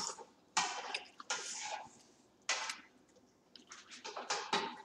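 Scattered short noises of people eating at a table, with food and dishes being handled: about four brief bursts spread across a few seconds.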